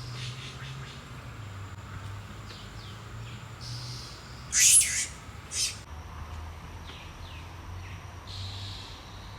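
A bird calling in forest: two loud, short, very high-pitched calls about halfway through, with fainter calls before and after, over a quiet steady background.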